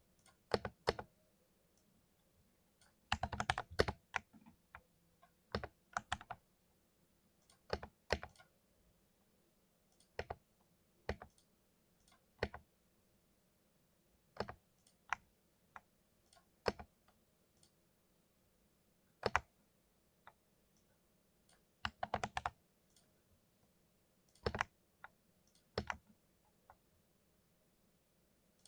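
Keys of a very small keyboard being pressed: single clicks and short bursts of keystrokes with pauses between, including a quick run of presses about three seconds in.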